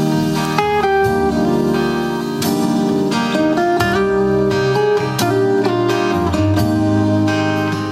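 Live pop ballad performance: guitar playing with a singing voice carrying the melody, loud and continuous.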